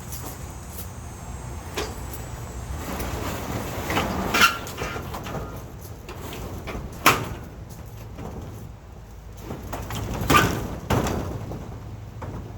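Metal knocks and scraping from working a sliding door's jamb latch: three loud sharp clacks, with scraping leading into the first and the last.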